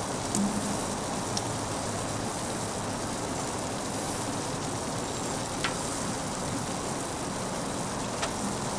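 Beef burger patties and sliced onions sizzling on a Blackstone propane flat-top griddle kept at low heat: a steady frying hiss. A few faint clicks come through it, about a second in, halfway through and near the end.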